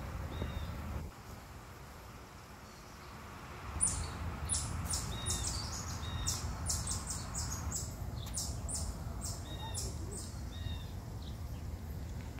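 Woodland ambience: a steady low rumble with small birds chirping, including a quick run of sharp high chirps from about four to eight seconds in.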